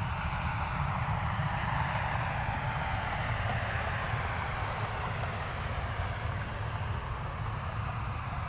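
Jet airliner engines passing: a steady rumble with a faint whine that slowly falls in pitch.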